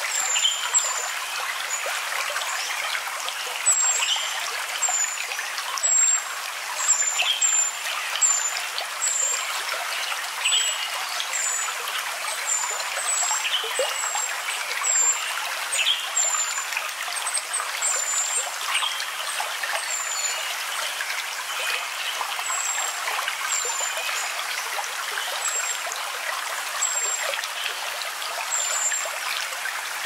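A stream trickling steadily, with short high falling chirps repeating about once a second over the water.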